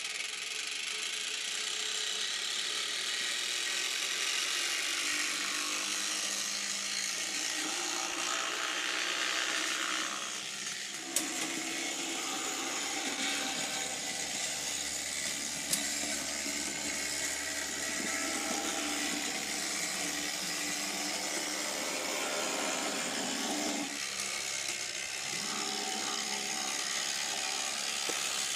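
Electric motor and gearing of an H0-scale model tram with a Bec-Kits drive, whirring steadily as the tram runs along the layout track. The tone shifts about ten seconds in and again about twenty-four seconds in, with two sharp clicks at about eleven and sixteen seconds.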